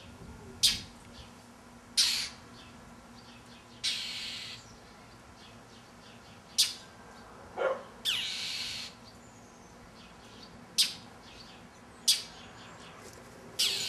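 Northern mockingbird scolding a stalking cat: harsh, sharp alarm calls every second or two, two of them drawn out into longer rasps.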